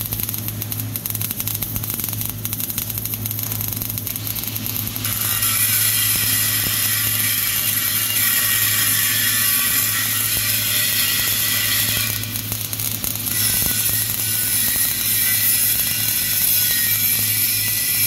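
MAG (gas metal arc) welding torch running a vertical 3G weld on a metal plate: a steady, dense arc crackle over a constant low hum. The crackle grows louder and harsher about five seconds in and eases briefly around twelve seconds.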